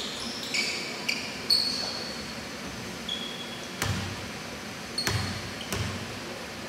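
Sneakers squeaking on a basketball court floor several times, short high squeals, and a basketball bouncing about three times in the second half.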